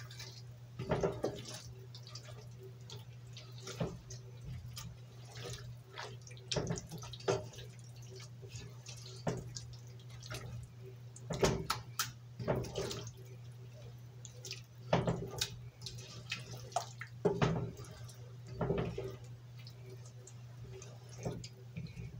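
A spatula scraping and tapping against a metal pot while chicken drumsticks in a thick sauce are stirred: irregular wet clicks and scrapes every second or two, over a steady low hum.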